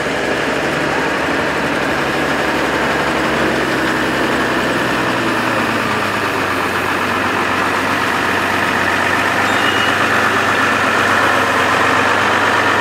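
Vintage Bedford tipper lorry's engine running steadily as it drives slowly past, with the engines of other vintage vehicles in the parade mixed in.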